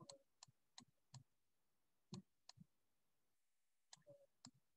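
Faint, irregular clicks of a stylus tapping a pen tablet during handwriting, roughly two or three a second with gaps, the loudest about two seconds in.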